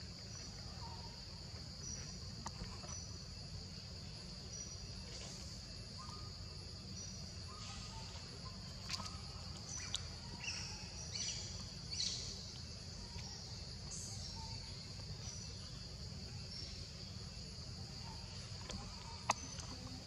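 Steady, high-pitched drone of insects over a low, even rumble, with scattered short chirps and clicks and one sharp click near the end.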